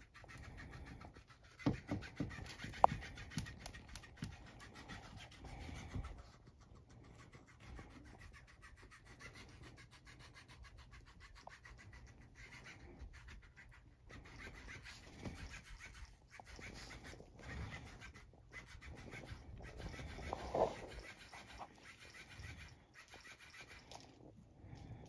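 Yorkshire terrier puppy playing with a plush toy fish on a carpet: scratching, rustling and scrabbling of paws and toy, with a few sharp knocks about two to three seconds in.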